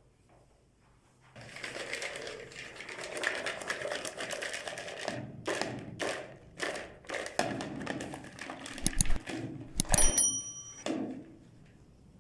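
Meat grinder crunching and crackling through chili peppers, with several sharp knocks and a brief metallic ring about ten seconds in.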